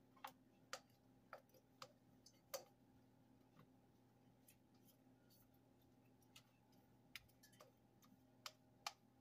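Faint, scattered clicks and taps against a stainless steel mixing bowl as batter is poured and scraped out into a metal loaf pan, the loudest tap about two and a half seconds in, over a low steady hum.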